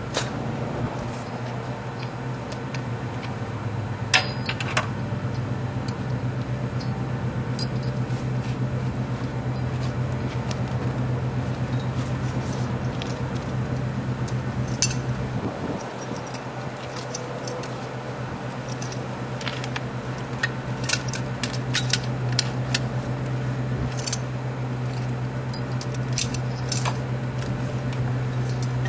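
Metal clinks and clicks from the hardware of a rescue strut and its ratchet strap as it is set up, with a loud clank about four seconds in and a quick run of clicks near the end as the strap is worked, over a steady low hum.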